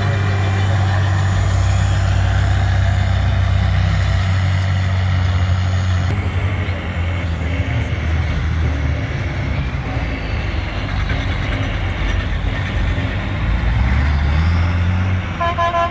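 Off-road trial truck's engine running at low revs under load, its pitch stepping up and down as it crawls over dirt mounds. A horn sounds in a few short beeps near the end.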